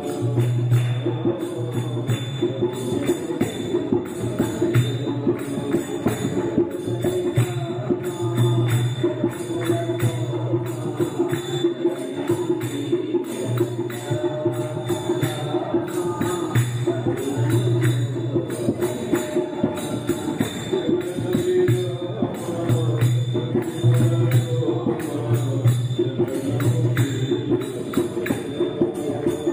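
Music, likely laid over the footage, with a steady beat of jingling percussion over a pulsing low note.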